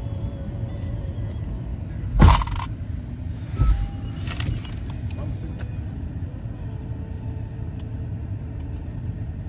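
Car engine idling, a steady low rumble heard from inside the car, with a sharp thump about two seconds in and a smaller knock a second and a half later.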